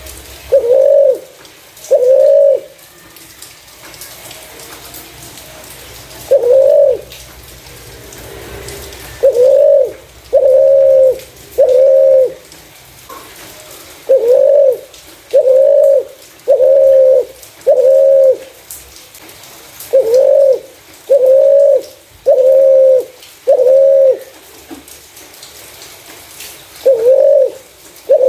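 Spotted dove cooing: short, loud coo notes about a second apart, in runs of two to four with brief pauses between the runs.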